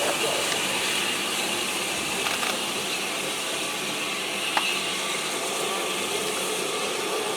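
Steam locomotive hissing steadily, with a few faint clicks.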